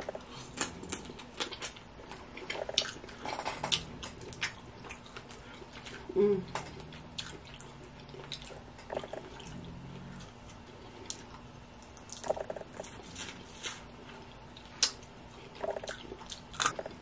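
Steamed blue crabs being picked apart by hand: irregular small cracks and clicks of shell breaking and snapping, mixed with wet squishing of crab meat and chewing and lip smacking. A short voiced sound comes about six seconds in.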